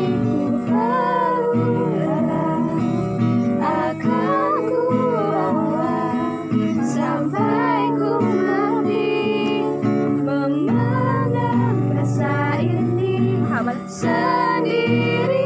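Acoustic guitar strummed as accompaniment while a woman sings a slow Indonesian pop song.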